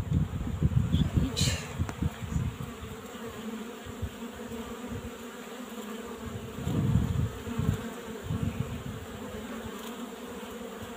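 Honeybees buzzing steadily at a hive entrance, foragers returning loaded with pollen as the spring pollen flow starts. Brief low rumbles near the start and again about seven seconds in.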